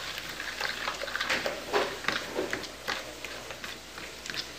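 A fork stirring a wet, lumpy mix of margarine, egg, cream and water in a plastic bowl, with irregular short scrapes and clicks of the fork against the bowl.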